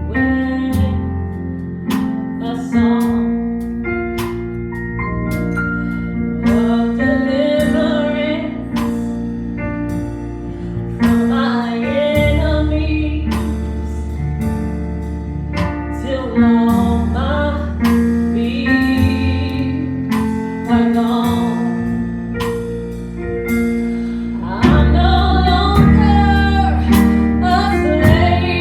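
Live gospel worship music: a praise team singing over keyboard, bass and drums, with steady percussion hits and a fuller, louder passage near the end.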